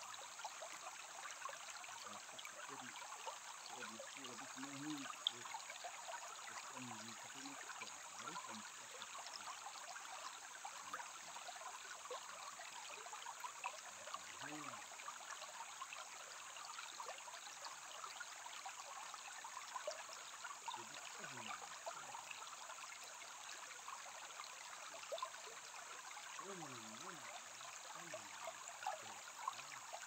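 Shallow stream running over pebbles and gravel, a steady rippling trickle of water.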